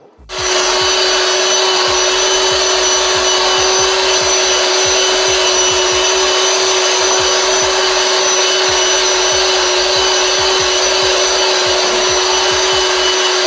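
Electric hand mixer switching on about a third of a second in, then running steadily at one speed with a motor whine, its beaters churning thick cake batter in a plastic bowl.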